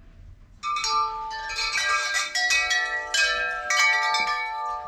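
A large hanging wind chime of long metal tubes ringing. It starts about half a second in, and the tubes are struck again and again, so many clear tones overlap and keep ringing.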